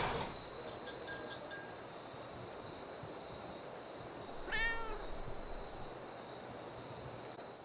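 A steady hiss with thin, high steady tones, and about four and a half seconds in a single short pitched call that rises and then falls; the sound fades out at the end.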